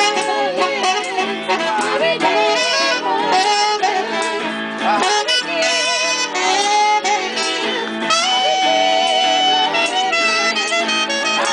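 Live gospel band music: a saxophone plays the lead over electric guitar, with voices singing along, and holds one long note about two thirds of the way through.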